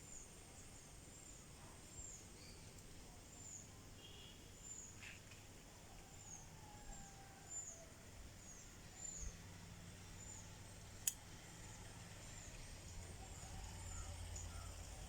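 A small bird's short high chirp, repeated about once or twice a second over a quiet outdoor background. A single sharp click about eleven seconds in, and a low hum that grows near the end.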